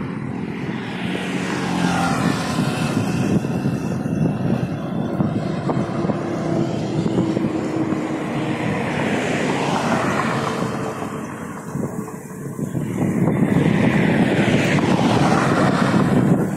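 Traffic passing at speed on a highway: tyre and engine noise swells and fades as vehicles go by one after another, with a brief lull about twelve seconds in.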